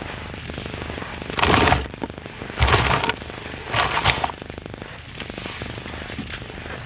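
Hands squeezing and dropping wet, gritty mud in a plastic tub: a steady wet crackle with three louder squelching splashes about one and a half, two and a half and four seconds in.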